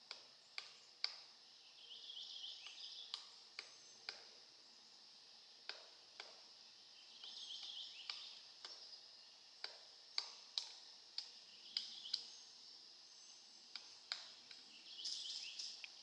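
Pileated woodpecker pecking and chipping into a rotten fallen log as it forages: faint, sharp, irregular taps, about one a second with uneven gaps, over a steady high hiss.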